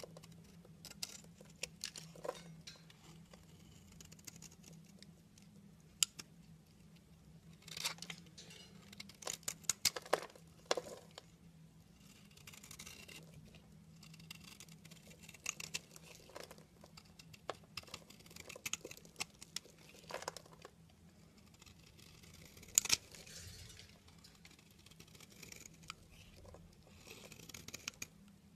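Utility knife blade scraping and carving into a crumbly bar of soap: uneven crunchy strokes as the soap breaks off in flakes and shavings, busiest about a third of the way in, with one sharp crack about three-quarters of the way through.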